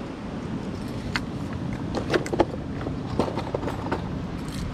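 Small metal clicks and clinks from a fishing lure's snap clip and treble hooks being handled as the lure is clipped onto the line, in a cluster about two seconds in and again just after three seconds. Under them runs a steady low rumble.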